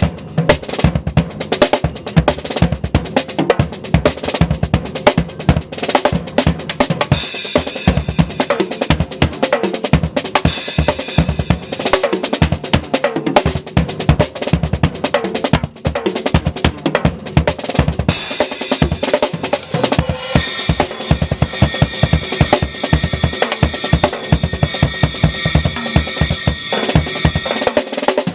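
Acoustic drum kit played solo outdoors: fast, busy fills on snare and toms over frequent bass drum kicks, with rimshots. About 18 seconds in, a steady cymbal wash joins the drumming.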